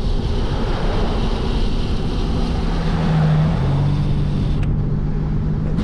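Wind rushing over the microphone of a handlebar-mounted camera on a fast bicycle descent. About two seconds in, a steady low hum joins it and drops slightly in pitch partway through.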